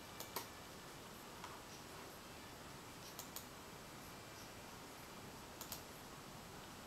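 Faint clicking at a computer, a few sharp clicks that mostly come in quick pairs, three times in all, over quiet room tone.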